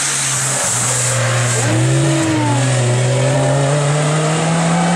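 Hill-climb race car engine under hard acceleration, its pitch dropping briefly at gear changes about half a second and two seconds in, then climbing steadily as it pulls through the next gear.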